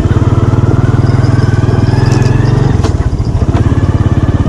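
Small motorcycle engine running as it is ridden, its pulsing note dropping a little under three seconds in as the throttle eases off. A few short rattles are heard along the way.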